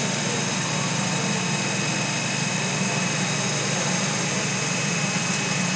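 Electric motor and two-stage centrifugal pump running steadily at about 1400 rpm: an even drone with faint, steady high whining tones.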